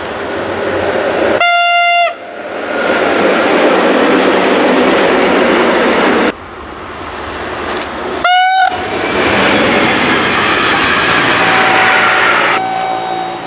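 Trains running past with steady rail and wagon noise. Two short blasts of a locomotive horn, one about a second and a half in and another about eight seconds in, the second bending in pitch. The sound changes abruptly about six seconds in, as it cuts to another train.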